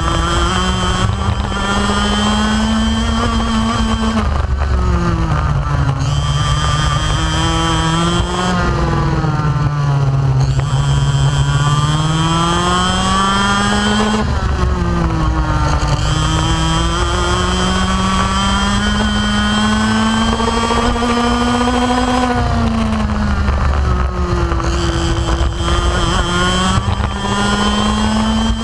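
125cc two-stroke racing kart engine at full race pace, heard from on board: the revs climb steadily along each straight and fall away sharply into each corner, about five times, over a constant rush of wind.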